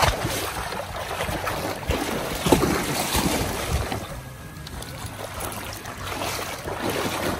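A German shepherd plunges off a dock into shallow lake water with a sudden splash, then wades and bounds through it, splashing unevenly.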